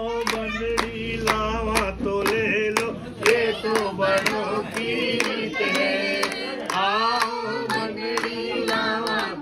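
A group of voices singing a traditional Indian wedding folk song together, without instruments, with hand clapping keeping the beat at about three claps a second.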